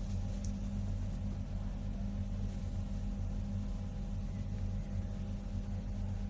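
A steady low machine hum, a constant drone that does not change.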